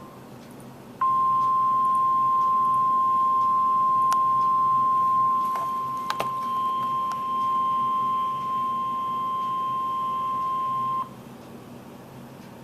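NOAA Weather Radio warning alarm tone: a single steady high beep near 1 kHz that starts about a second in, holds for about ten seconds and cuts off suddenly, with faint static clicks over a low radio hum and hiss. It is the tone that sets off tone-alert weather radio receivers ahead of an emergency message.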